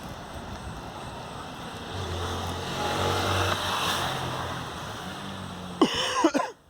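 City bus engine running and road noise, heard from inside the bus. The engine hum comes in about two seconds in and swells as the bus pulls along. A few brief, sharp sounds come near the end.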